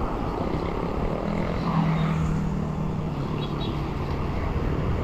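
Wind rushing over the camera microphone on a fast road-bike descent, with a low engine hum from nearby traffic between about one and two and a half seconds in.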